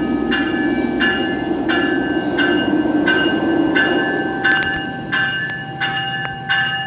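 GO Transit commuter train's bell ringing steadily, about three strikes every two seconds, as the train pulls out of the station. Under it, the low rumble of the train fades away about five seconds in.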